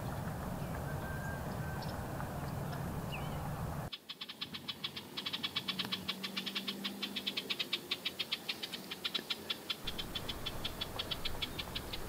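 A steady low rumble with a few faint bird chirps. About four seconds in it cuts abruptly to a rapid, even, high-pitched clicking trill, which keeps going.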